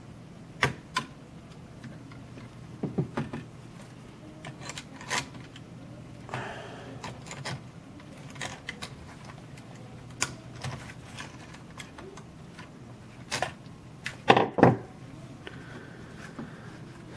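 Irregular clicks and taps of a small screwdriver, gripped with pliers, working the tight inside screws of a camera body, with a louder cluster of knocks about fourteen seconds in.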